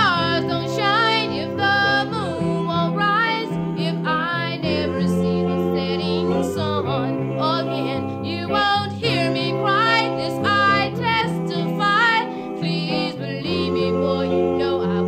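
Background song: a singing voice with vibrato over sustained instrumental accompaniment.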